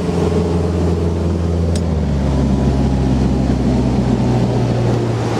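Motorboat engine running steadily under way, its pitch dropping a step about two seconds in.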